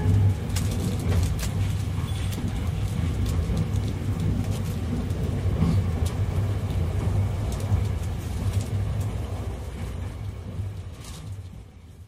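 Cabin running noise of a JR West 681 series electric train: a steady low rumble with a few faint clicks, fading away near the end.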